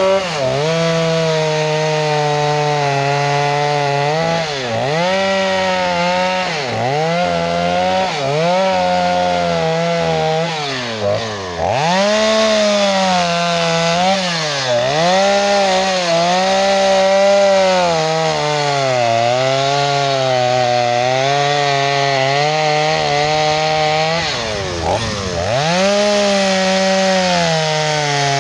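Two-stroke gas chainsaw running at high revs while cutting into a log. The engine pitch drops every second or two as the chain bites into the wood, then rises again as it frees.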